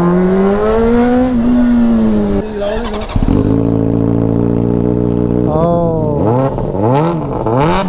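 Honda CBR600RR's inline-four engine through a loud Yoshimura exhaust: revs climbing and easing off slowly, then settling to a steady idle about three seconds in, with three quick throttle blips near the end.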